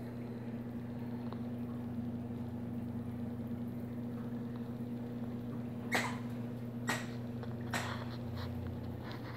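Steady electrical hum from reef aquarium equipment such as pumps, with three short sharp clicks about two-thirds of the way in.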